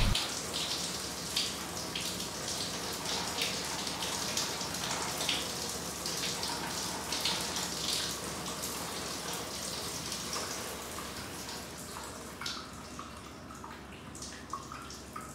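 Water running and splashing, with many irregular drips and splashes, slowly getting quieter.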